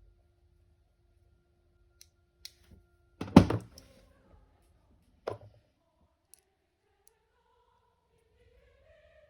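Small hard parts of an airsoft gearbox being handled and set down: a few light clicks, a loud clattering knock about three seconds in, and a second sharp knock about two seconds later, then a couple of faint ticks.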